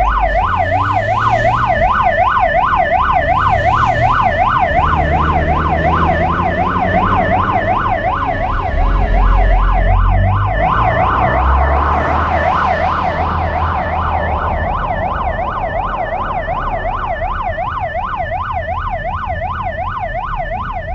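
Police car sirens on a fast warble, the pitch sweeping up and down about four times a second, over the low rumble of car engines going by. The siren slowly grows quieter in the second half.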